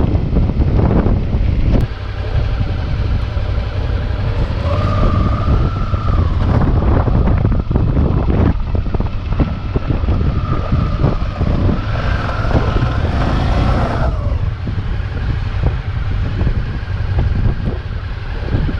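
Motorcycle engine running while riding on desert sand, with a heavy, steady wind rumble on the microphone and scattered knocks. A higher whine comes in twice, about five seconds in and again for several seconds near the middle.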